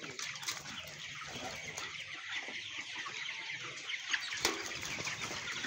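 A crowded flock of young white broiler chickens calling together: a steady, dense chatter of many overlapping short, high peeps and clucks.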